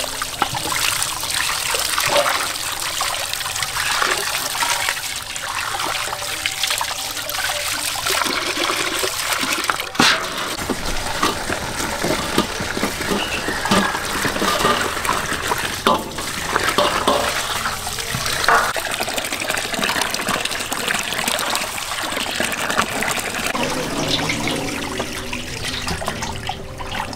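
Water running from a tap and splashing in a steel basin as raw pork liver, then vegetables, are washed by hand, with a few sharp knocks.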